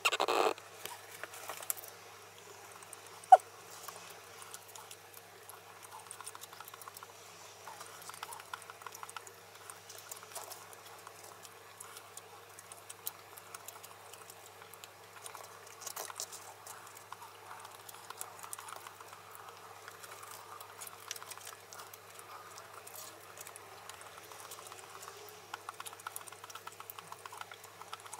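Chopsticks tapping and scraping against a thin wooden bento box and its food, sped up to four times speed, so the handling turns into rapid, high, scattered clicks and taps. A sharp click stands out about three seconds in.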